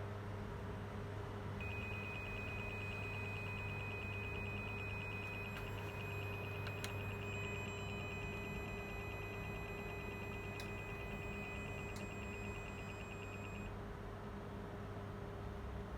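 Electrical hum and whine from an amplifier test bench. A steady low hum runs throughout. A high-pitched whine with a fast, even buzzy pulsing starts about two seconds in and stops about two seconds before the end, with a few faint clicks.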